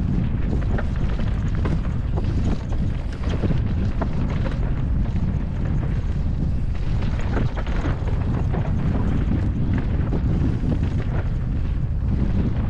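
Wind buffeting the GoPro's microphone during a fast mountain-bike descent, a steady low rumble, with frequent short clicks and rattles from the bike and its tyres on a dusty, loose dirt trail.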